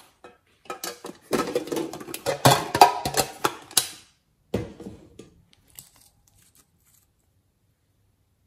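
Rapid clicking and clattering of hard cosmetic cases and a nail polish bottle being handled, with one sharper knock about four and a half seconds in. A few faint clicks follow.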